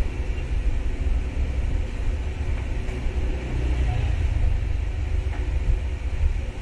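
Steady low rumbling background noise that wavers in level, with no distinct events.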